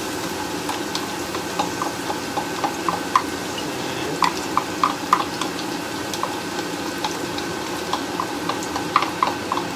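Minced garlic sizzling in hot oil in a frying pan. Over it come irregular light clicks and taps as a wooden spatula scrapes the garlic out of a glass bowl and stirs it in the pan.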